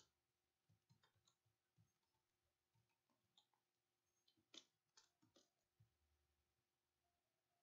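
Faint computer keyboard keystrokes: a scattered run of light clicks, over near-silent room tone with a faint steady hum.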